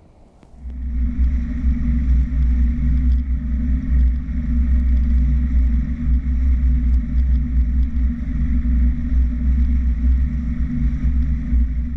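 Mercury EFI outboard motor running at speed as the jon boat travels, a steady heavy low rumble. It starts abruptly about half a second in.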